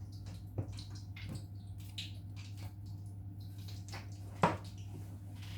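A few faint clicks and one sharper tap about four and a half seconds in, from a spoon and spice containers being handled while flour is seasoned, over a steady low hum.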